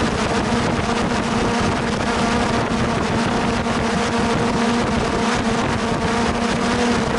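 Hexacopter's electric motors and propellers humming at a steady pitch while it hovers, with wind noise on the onboard microphone.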